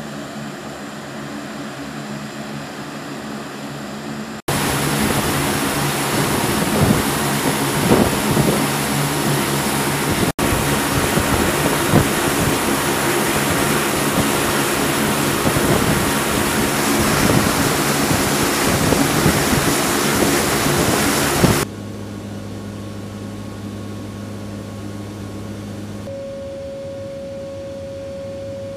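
Military transport aircraft engine noise. A moderate hum with a few steady tones heard from the airfield apron gives way, about four seconds in, to loud, dense engine and airflow noise inside the aircraft's cabin that lasts about seventeen seconds. It then drops back to a lower hum, and a single steady tone comes in near the end.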